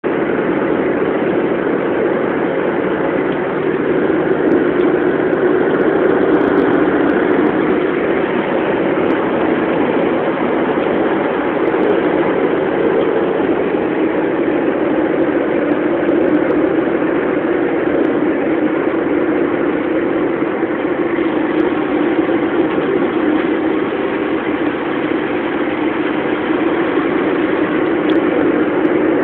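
Car driving at a steady pace: engine and tyre/road noise blending into one even drone that hardly changes.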